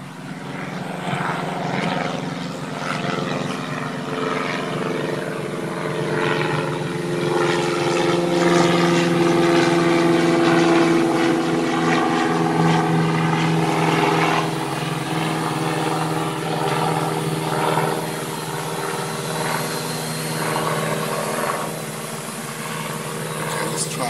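Propellers of a Parrot ANAFI quadcopter, stripped to under 250 grams and running Betaflight, humming in flight. The hum is a steady stack of tones that wavers slightly in pitch and grows loudest about halfway through.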